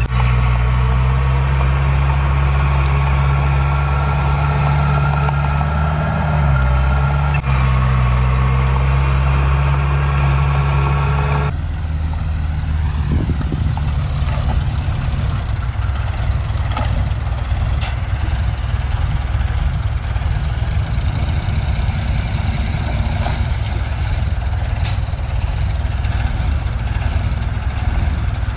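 Heavy diesel engine of earthmoving machinery running steadily, with a brief dip in revs about six seconds in. About eleven seconds in the sound changes abruptly to a rougher low engine rumble with a few sharp clicks.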